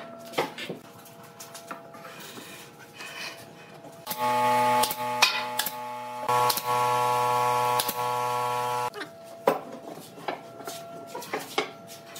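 Workshop handling knocks and clicks, then an electric power tool's motor running steadily for about five seconds before cutting off.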